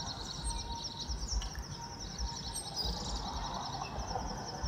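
Outdoor ambience: small birds chirping in a quick, steady series of short high notes over an uneven low rumble.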